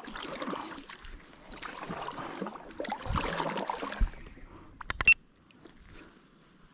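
Water splashing and sloshing in several swells, then a sharp knock about four seconds in and a louder double knock about a second later.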